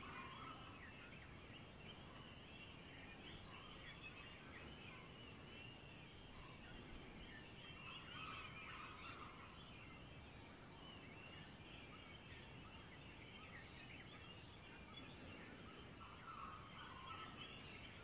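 Faint dawn chorus of many birds chirping and calling at once. A lower, longer call stands out at the start, about eight seconds in, and again near the end.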